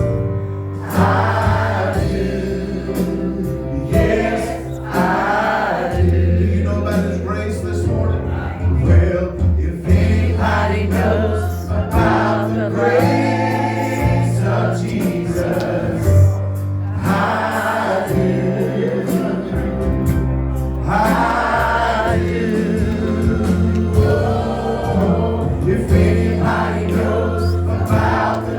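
Gospel hymn sung by a group of voices in church worship, over instrumental accompaniment with sustained bass notes that change every couple of seconds.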